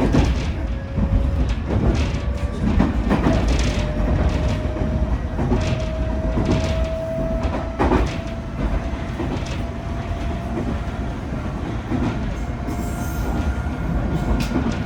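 Hitachi IGBT-VVVF inverter and traction motors of a Nankai 8000 series train, heard from inside the motor car, whining under power: a thin tone climbs slowly in pitch over the first several seconds as the train gathers speed on the grade. Underneath is the rumble of the wheels and the occasional clack of rail joints, and a higher tone rises near the end.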